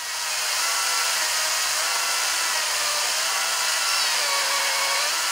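Einhell GE-LC 36/35 Li brushless cordless chainsaw cutting through a thick log: a steady whine of the electric motor and chain with the hiss of cutting wood. The pitch sags slightly now and then under load.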